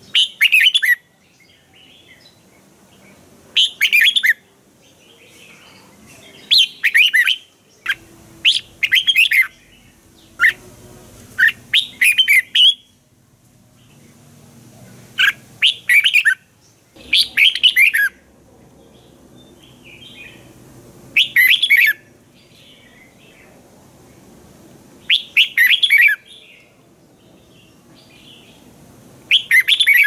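Red-whiskered bulbul singing short, bright, chattering phrases about a second long, about a dozen of them spaced a few seconds apart: lively, excited song of the kind played to train or rouse other bulbuls.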